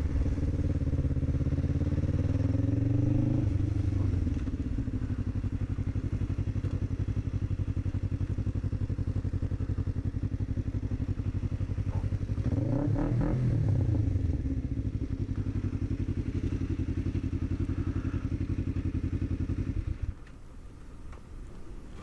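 Motorcycle engine running under way. The revs climb over the first few seconds, then hold steady, with a short rev rise and fall about halfway through. The engine sound cuts off suddenly near the end.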